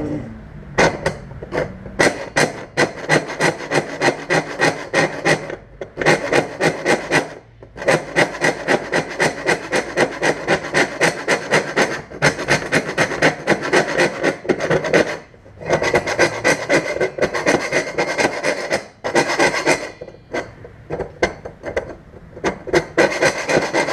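A hand file rasping back and forth in the bulb hole of a thin pressed-metal 1936 Studebaker headlight reflector, in fast runs of several strokes a second with a few short pauses. The reflector bowl makes it noisy even though little pressure is on the file.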